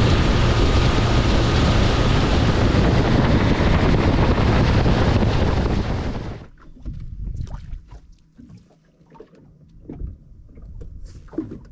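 Rush of wind and spray from a fishing boat planing at speed, with wind buffeting the microphone. About six seconds in it cuts off suddenly to a much quieter scene of faint water lapping and a few light knocks.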